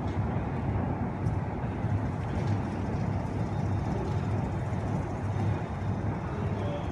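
Self-propelled robot pallet stretch wrapper running as it drives around a pallet load: a steady low rumble from its drive and wheels.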